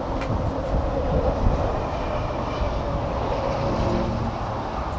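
Outdoor background noise: wind buffeting the microphone over a steady low rumble, with a faint click just after the start.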